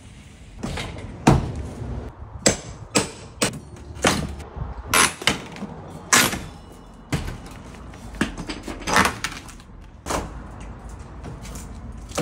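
A pry bar banging and levering at an old sliding glass door frame to tear it out of the wall: about a dozen irregular knocks, roughly one a second, some with a longer metallic ringing or scraping.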